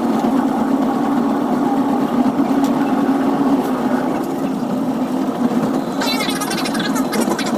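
Caltrain commuter train's running noise heard from the leading cab car, a steady hum. About six seconds in, rapid high-pitched voice-like chatter joins in.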